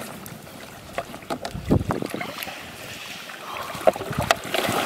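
Shallow floodwater sloshing and splashing around people wading and working a weed-choked net, with scattered small knocks and the rustle of wet grass.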